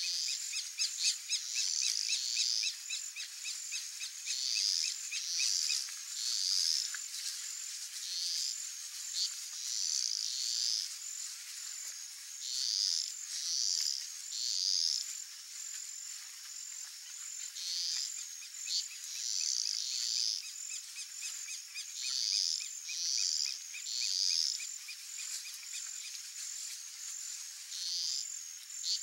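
A chorus of high-pitched calls from small wild animals, such as insects or frogs, repeated in groups of two or three. Beneath them run a steady high buzz and, for some stretches, a fast ticking.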